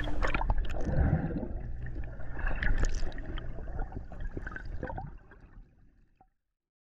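Underwater sound of bubbles and churning water with a low steady hum and scattered clicks and knocks. It fades out about five seconds in.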